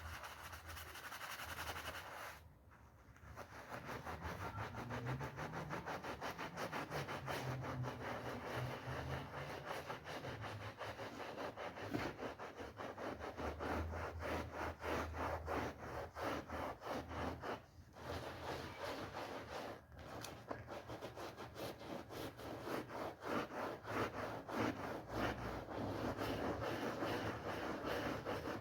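Wool rug being scrubbed with a brush in quick, repeated rubbing strokes, with short pauses about three seconds in and again around eighteen and twenty seconds.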